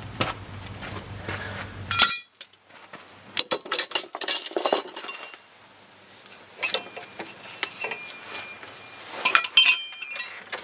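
Steel hand tools and parts clinking and rattling against each other as they are handled, in several bursts of sharp, ringing clinks. A steady low hum stops about two seconds in.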